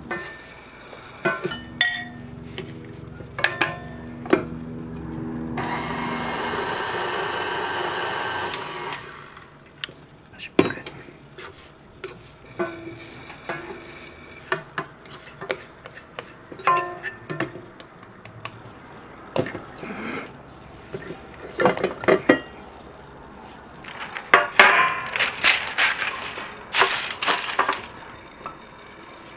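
Metal pastry blender and spatula knocking and scraping against a metal mixing bowl while working fathead dough, with a steady whir for about three seconds early on and parchment paper crinkling near the end.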